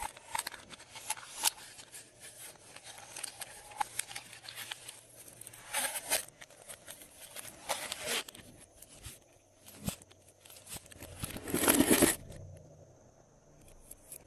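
Glossy slime being stretched and pressed by hand, giving sticky crackles and clicks, with a longer, louder squelch about three-quarters of the way through before it goes quieter.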